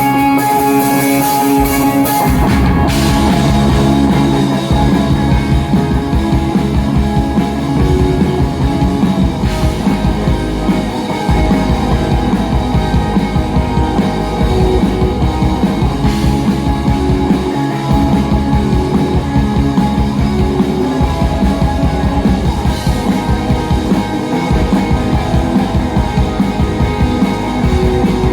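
Rock band playing an instrumental intro on electric guitar, bass and drum kit, the drums coming in about two seconds in.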